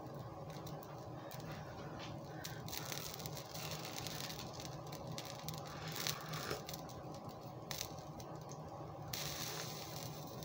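Faint bubbling and crackling of a pot of soup simmering on an electric hob, with a few light clicks over a steady low hum.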